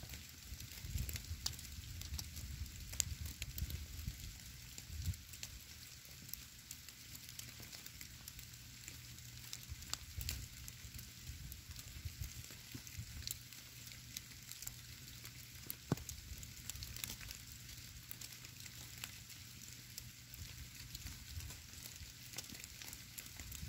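Falling wet snow ticking and pattering on a wet stone boulder and the leaf litter around it: a fine, steady crackle of scattered light ticks, with a low rumble underneath.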